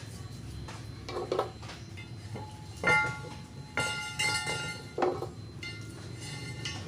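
Metal clinking and scraping: two sharp clinks that ring on briefly, about three and four seconds in, and short scrapes around them, over a steady low hum.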